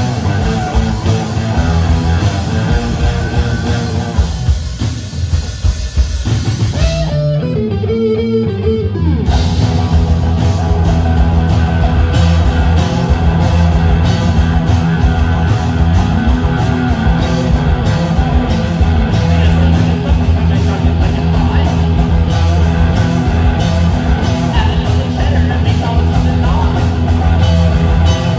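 Live rock band playing loud: distorted electric guitars, electric bass and drum kit. The band thins out to a sparser passage a few seconds in, then the full band comes back in.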